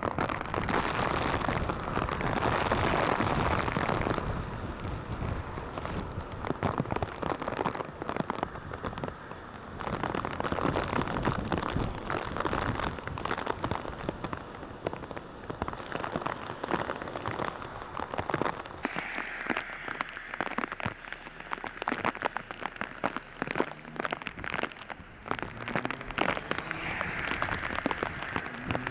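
Heavy rain pouring down, a dense patter of drops striking close by, heaviest in the first few seconds and then easing a little.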